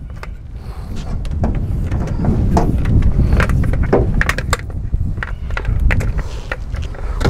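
A handheld spotlight and its electrical cord being coiled and handled in a boat: scattered light knocks and clicks over a steady low rumble.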